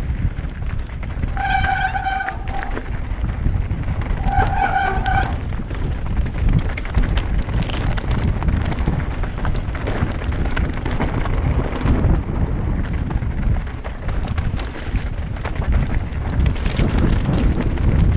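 Mountain bike riding down a rocky, loose-stone track: tyres rumbling and crunching over stones and the bike rattling throughout. Twice in the first five seconds the brakes squeal briefly with a steady high tone.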